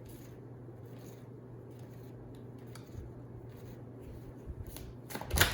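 Tarot cards being handled: faint scratchy slides and soft taps over a low steady hum, with one brief louder swish of cards near the end.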